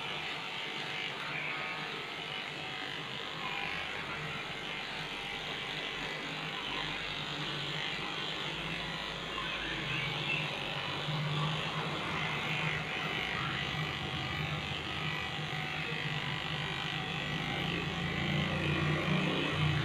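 Electric dog clipper buzzing steadily as it shaves a Shih-tzu's body coat, the hum growing a little louder in the second half.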